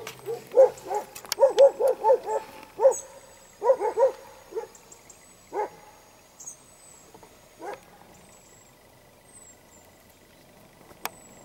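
Hunting dog barking: a quick run of short barks, about three a second, for the first four and a half seconds, then a few single barks spaced out before it falls quiet.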